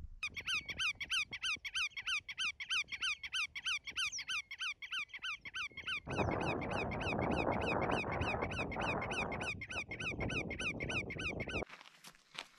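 A bird calling over and over: a short high chirp that rises and falls, repeated about four times a second. A rushing noise joins it for a few seconds in the middle, and both cut off abruptly near the end.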